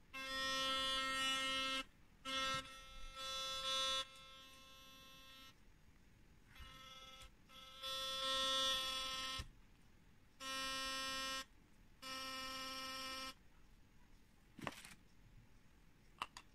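Philips Sonicare DiamondClean 9000 sonic electric toothbrush buzzing in the air, switched on and off in about seven short bursts, some louder than others. A brief knock near the end.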